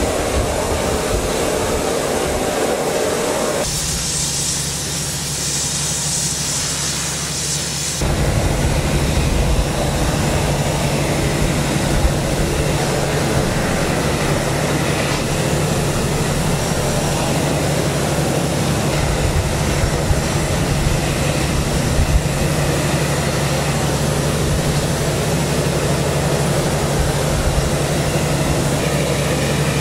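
Flame-spray powder coating gun running: a steady rush of burning gas and blown powder with a low hum beneath. The sound changes for a few seconds near the start and turns louder about eight seconds in.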